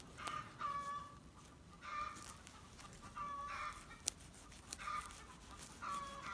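Backyard chickens clucking, short calls coming every second or so, with one sharp click about four seconds in.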